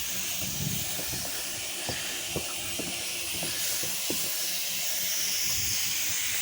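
Pressure washer spraying water in a steady hiss, rinsing down a deck, with scattered small ticks.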